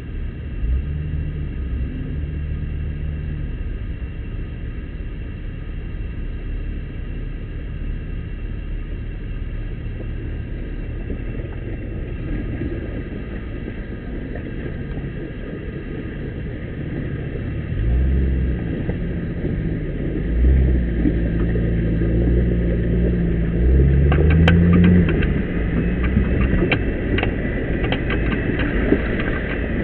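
Jeep engine running at crawling speed on a dirt trail. Its note rises and falls with the throttle, more strongly in the second half. Sharp clicks and rattles come in near the end.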